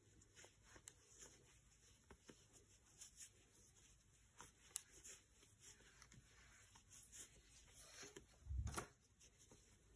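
Faint rustling and small clicks of a 12 mm plastic crochet hook pulling chunky t-shirt yarn through stitches while single-crocheting, with a soft thump about eight and a half seconds in.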